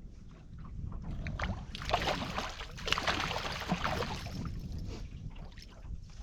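Wind rumbling on the microphone, with a burst of water splashing and sloshing at the boat from about two seconds in, lasting a couple of seconds.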